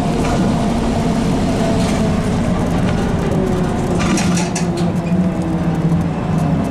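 ZiU-682 trolleybus heard from inside the cabin while under way: a steady low rumble with a few held humming tones from its drive. A quick run of clicks and rattles comes about four seconds in.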